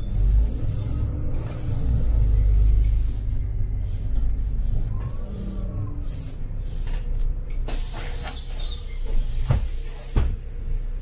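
Inside a city bus: the diesel engine's steady low rumble, then about eight seconds in a hiss of compressed air from the bus's air system that lasts about a second and a half. Two sharp knocks follow soon after.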